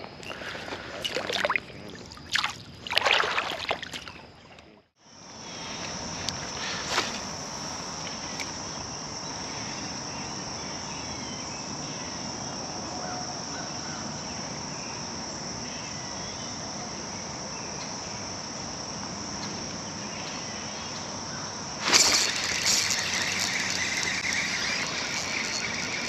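A steady high-pitched insect drone over an even outdoor hiss, after a few sharp splashes and knocks in the first seconds as a small fish goes back into the water. Near the end a louder rush of noise comes in over it.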